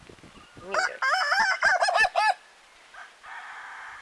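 Ayam Ketawa (laughing chicken) rooster giving its laughing crow: a rising opening note, then a rapid stuttering run of short warbling notes. A fainter drawn-out call follows near the end.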